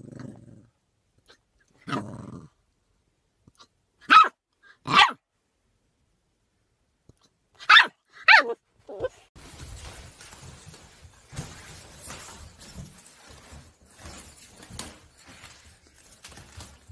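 A puppy gives two low grumbles, then four short high-pitched yapping barks in two pairs, the last one sliding down in pitch. After that come faint steady rustling and small knocks, like a dog moving about in a pop-up fabric play tent.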